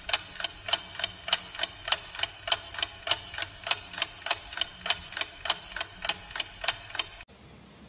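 Clock ticking sound effect, an even run of sharp ticks about three a second, marking thinking time; it stops suddenly near the end.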